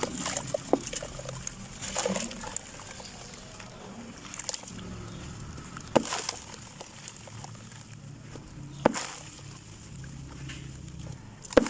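Dried sand-cement lumps crumbling, with a few sharp cracks spread through it, the clearest about halfway and again near the end.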